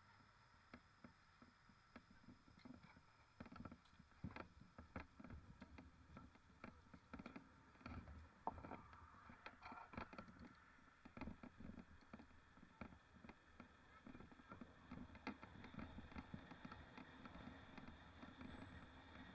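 Mountain bike rattling faintly over rough ground: scattered, irregular clicks and knocks, sometimes several a second, over a low steady hiss.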